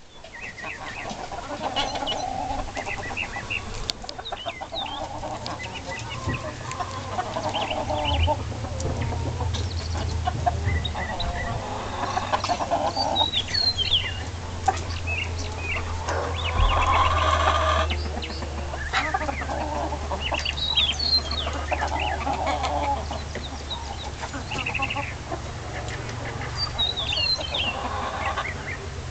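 Black Copper Marans chickens, a rooster and hens, clucking and calling continuously, with short high-pitched chirps scattered among the clucks.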